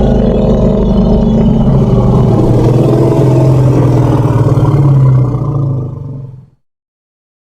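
Elephant rumbling: a loud, low, droning call with a steady pitch that fades out about six seconds in.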